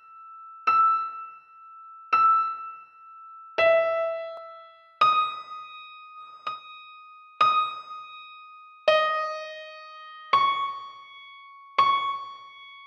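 Background music: a slow piano melody, one note or chord struck about every second and a half, each ringing out and fading before the next.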